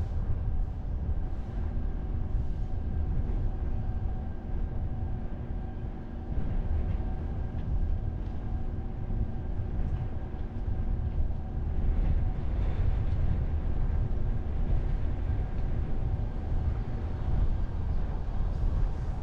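Car driving on city streets: a steady low rumble of road and engine noise, with a humming drone that comes in about a second and a half in and fades near the end.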